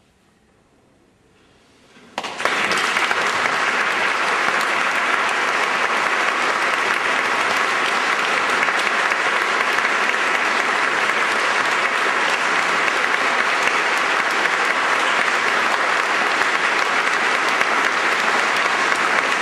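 After a brief hush, audience applause starts suddenly about two seconds in and continues steadily.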